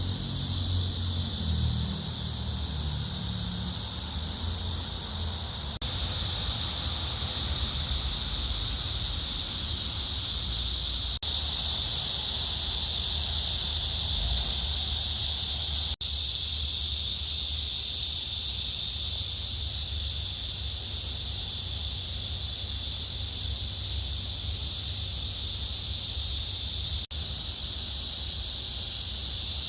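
Steady outdoor ambience: a continuous high hiss with a low rumble underneath, briefly dropping out a few times.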